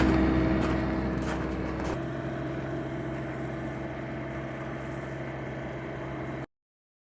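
Vehicle engine running with a steady hum, growing quieter as it pulls away; the sound cuts off suddenly near the end.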